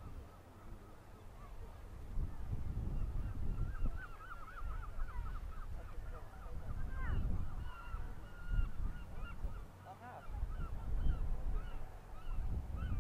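Birds calling in quick runs of short high chirps from about three seconds in, with one rising cry about seven seconds in, over a low gusting wind rumble on the microphone.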